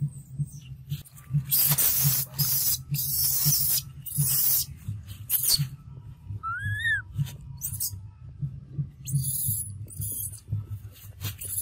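Dry leaf litter rustling and crackling in repeated bursts as a baby monkey scrabbles through it. About six and a half seconds in comes a single short high squeak that rises and falls.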